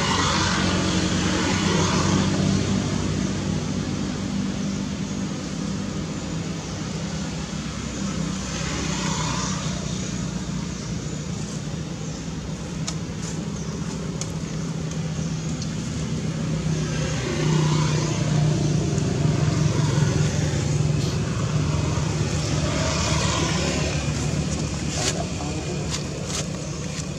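Steady low hum of a motor vehicle engine running, with road traffic noise swelling and fading about four times.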